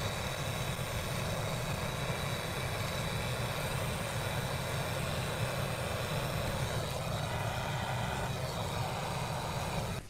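Handheld gas brazing torch burning steadily with an even hiss over a low rumble, heating a punctured refrigerator freezer evaporator for silver brazing the leak hole.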